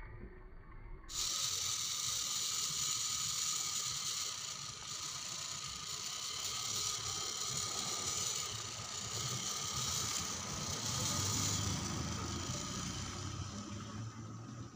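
A 1/10-scale RC rock crawler's electric motor and gear train whining as it crawls over rocks. The whine starts about a second in and wavers in level.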